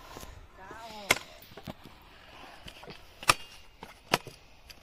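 Freestyle stunt scooter banging onto and grinding along skatepark obstacles in a trick line: three sharp knocks, about a second in, just after three seconds and just after four seconds, with a faint scraping between.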